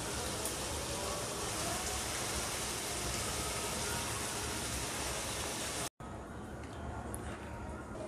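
Chicken bhuna curry sizzling in oil in the pot as a steady hiss, which stops abruptly about six seconds in. A few light clicks follow.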